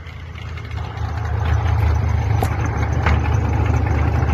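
Airboat engine and propeller running steadily at low speed, a deep rumble that grows louder about a second in as the airboat draws up alongside.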